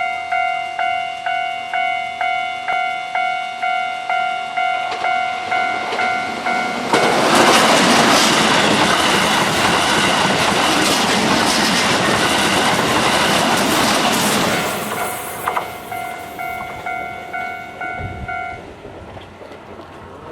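Level-crossing warning bell ringing about twice a second. A Keihan Series 3000 electric train then passes loudly for about seven seconds, its running noise drowning out the bell. The bell is heard again once the train has gone and stops a few seconds before the end.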